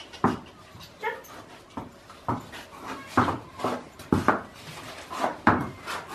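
An irregular series of sharp knocks and clatters, about a dozen in a few seconds, the loudest about halfway and near the end.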